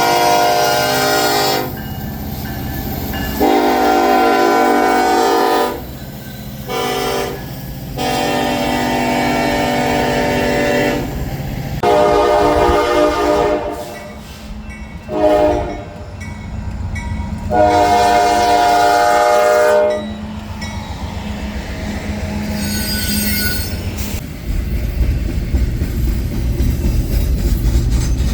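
Locomotive air horn sounding a series of about eight long and short blasts, each a chord of several tones. After the last blast the rumble of the passing train rises and grows loudest near the end.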